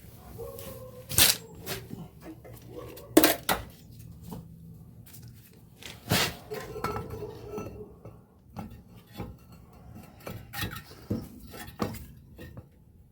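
Metal clanks and clinks of a brake caliper being handled and pushed over a front brake rotor, with three sharp clanks about one, three and six seconds in among lighter clicks, some ringing briefly.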